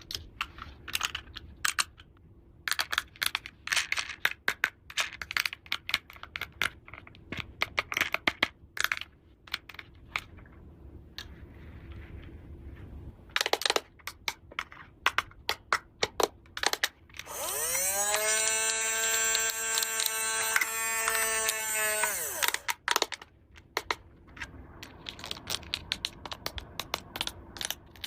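Small plastic toy pieces clicking, tapping and rattling as they are handled. About two-thirds of the way through, a loud steady pitched tone sounds for about five seconds, sliding up in pitch as it starts and down as it stops.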